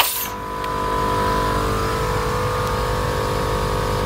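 Viair 450 12-volt electric air compressor running steadily, with a droning hum as it pumps up a fire-extinguisher air tank, over the pickup's engine idling. A sharp click right at the start.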